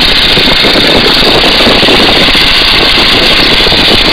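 Boeing-Stearman N2S-3's seven-cylinder Continental radial engine and propeller running steadily at climb power, loud and unbroken, mixed with the rush of wind over the open biplane.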